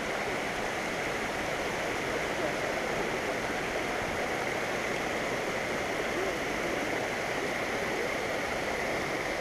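Steady rush of water spilling over a small concrete dam spillway and splashing into the pool below.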